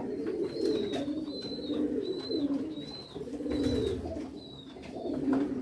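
Pigeons cooing steadily in low, warbling calls, with a high thin peep repeating over and over above them.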